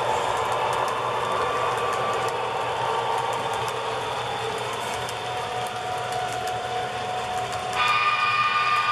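HO scale coal hopper cars rolling past on the model track: a steady rolling rattle of the wheels on the rails with light clicks. Near the end a locomotive sound decoder's horn comes on suddenly and holds as a steady chord.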